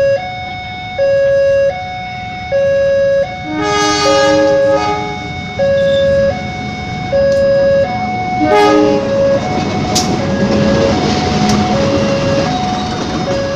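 Railway level-crossing warning signal sounding two alternating tones, each held under a second, while a CC 203 diesel locomotive approaches and sounds its horn twice, a long blast about four seconds in and a shorter one near the middle. From about nine seconds in the train passes close by: loud rumble and wheel noise with a few sharp clanks over the rail.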